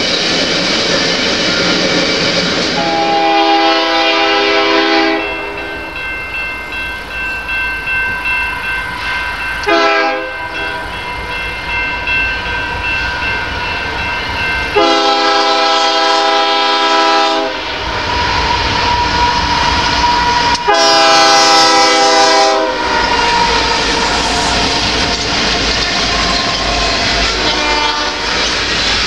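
Diesel freight locomotive horn sounding a chord of several notes in a series of blasts, three long and two short, for a grade crossing, over the steady rumble and clickety-clack of freight cars rolling past.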